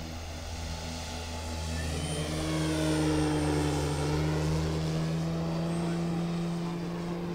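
Brushless electric motor (Leopard LC8072 outrunner) turning the 24x12 propeller of a giant-scale RC Robin DR 400 in flight. It makes a steady propeller hum that grows to its loudest about three seconds in as the plane passes, then eases off.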